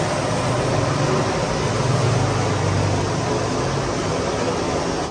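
Hot oil sizzling steadily as battered fish deep-fries in large karahi woks, over a low steady rumble.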